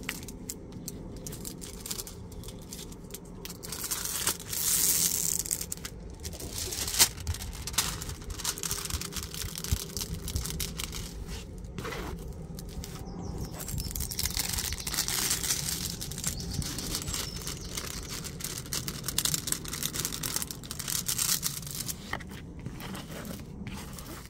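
Plastic cover film on a diamond-painting canvas crinkling and rustling in uneven bursts as hands and a plastic scraper smooth the canvas flat, with one sharp tap about seven seconds in.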